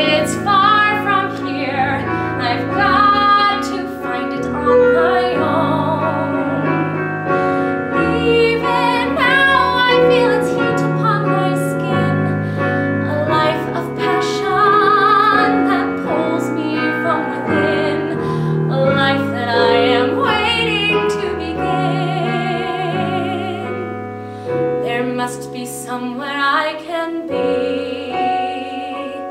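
A woman singing a solo musical-theatre song with wide vibrato on held notes, over piano accompaniment.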